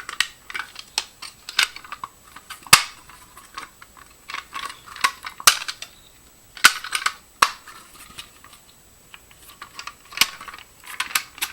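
Fire-Lite BG-12L pull station being handled: a series of sharp plastic-and-metal clicks and snaps as it is closed and latched, with quieter clatter in between.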